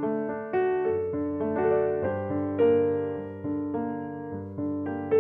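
Background piano music: a slow melody of struck notes that ring and fade over low held tones.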